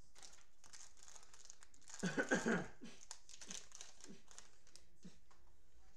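Plastic wrapper of a Prizm football card cello pack crinkling as it is handled and torn open, with the loudest burst of crinkling and tearing about two seconds in.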